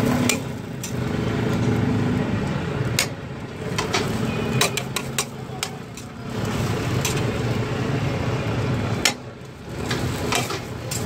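Metal spatula clinking and scraping on a flat steel griddle as fried egg is cut and pushed around, with sharp clinks scattered through. A steady low rumble runs underneath.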